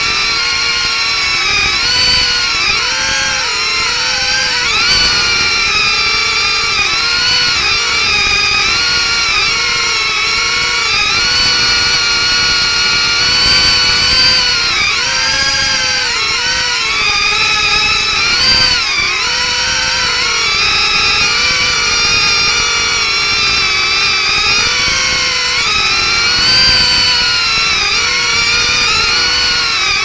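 Small drone's propellers whining, their pitch rising and falling continually as it manoeuvres in close flight.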